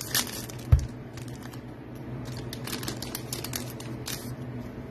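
Foil trading-card pack wrapper crinkling and crackling as it is opened and the cards are slid out. A single dull thump sounds about three-quarters of a second in.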